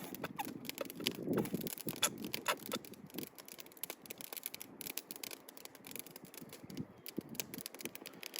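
Faint, irregular light clicks and taps of a utensil against a container as mayonnaise is worked into homemade tartar sauce.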